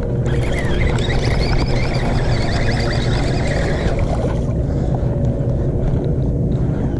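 Baitcasting reel cranked fast while reeling in a hooked fish, a rapid clicking whir that stops about four seconds in, over a steady low hum.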